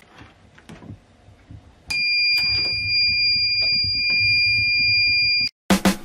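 A homemade door alarm's buzzer sounds a single steady, high-pitched tone that starts about two seconds in, holds for about three and a half seconds and cuts off suddenly. A few faint clicks come before it.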